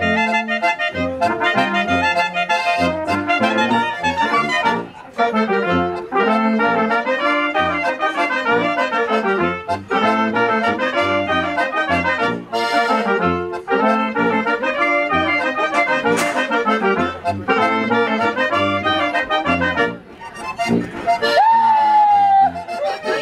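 German oompah band playing: tuba bass under button accordion, tenor horn and trumpets. Near the end the tune breaks off into a few sliding notes.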